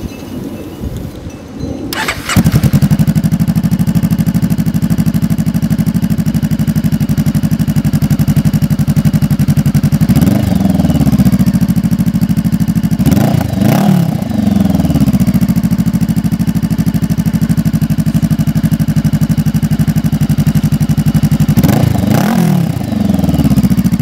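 Honda CBR500R parallel-twin engine fitted with a Coffman's shorty aftermarket exhaust. It starts about two seconds in and settles into a loud steady idle. It is revved in several quick throttle blips around the middle and again near the end.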